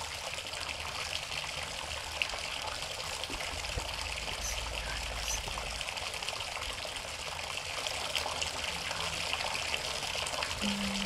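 Water pouring steadily from a bathtub spout.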